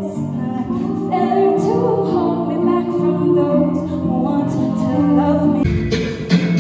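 Music with sustained held notes and a sung voice; about five and a half seconds in, the music changes and a heavier bass part comes in.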